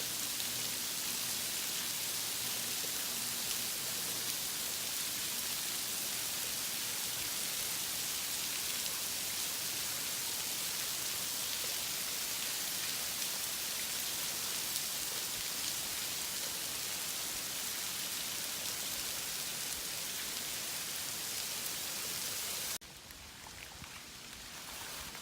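Water falling and dripping at a rock cave, a steady rain-like hiss that cuts off suddenly near the end.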